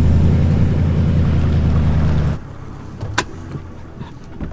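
Boat engine running steadily at low speed, a deep even hum that cuts off abruptly a little over two seconds in. A sharp click follows about a second later.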